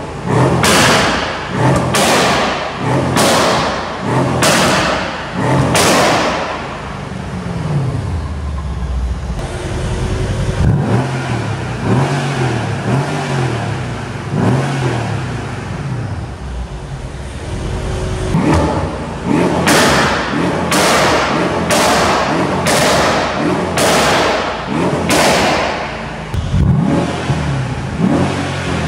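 Mercedes-AMG E63 S twin-turbo V8 exhaust under free revving: a string of short, sharp throttle blips about once a second, then longer revs rising and falling, then another string of sharp blips.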